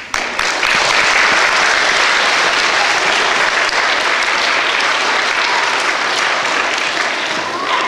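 A large audience applauding, a steady clapping that rises in at the start and begins to fade near the end.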